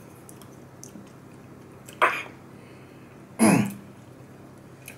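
A man clears his throat twice, two short rasping bursts about a second and a half apart, right after tasting hot habanero sauce.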